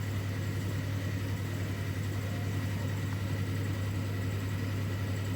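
Steady low electrical hum with a faint, thin high whine above it, unchanging throughout.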